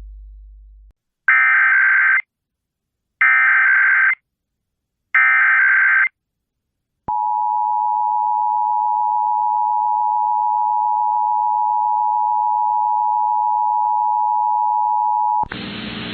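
Emergency Alert System signalling: three one-second bursts of screeching SAME digital data tones, about two seconds apart, then a steady dual-tone attention signal lasting about eight seconds. Near the end the tone cuts off into a noisy hiss.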